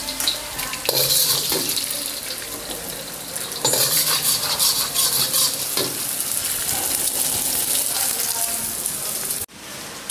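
Egg and garlic sizzling in hot oil in a steel wok, with a steel ladle scraping against the wok as the egg is scrambled. The sizzle surges about a second in and again near four seconds, then cuts off abruptly near the end.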